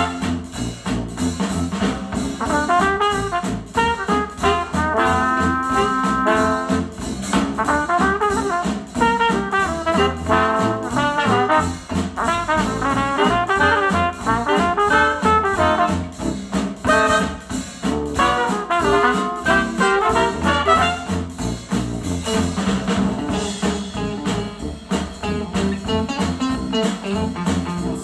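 Retro acoustic jazz with brass (trumpet and trombone) over a steady beat, played back through Dayton Audio B452 bookshelf speakers driven by a Yamaha A-S301 integrated amplifier.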